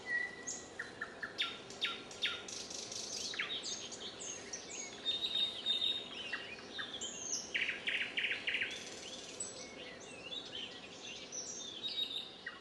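Several songbirds singing, with short chirps, whistled notes and a rapid trill, over a faint steady outdoor background hum.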